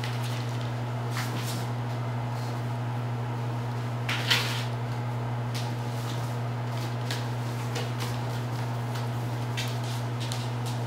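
Kittens tussling on a cardboard scratcher over a tile floor: scattered light scratches and soft knocks from claws and paws, with one louder scuffle about four seconds in, all over a steady low hum in the room.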